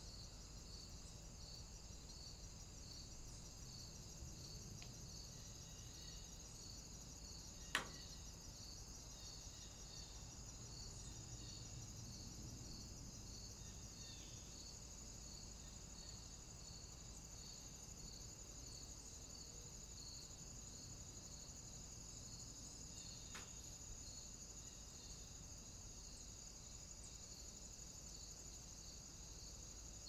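Faint crickets chirping steadily in a high, evenly pulsing trill, with one sharp click about eight seconds in.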